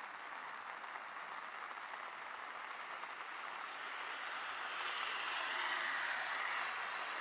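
Steady rain hiss, with a vehicle passing on the wet road: its tyre hiss swells up over the second half.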